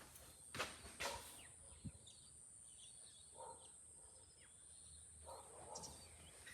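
Quiet outdoor rural ambience: a steady high-pitched insect drone, faint bird chirps, and two soft thuds about half a second and a second in.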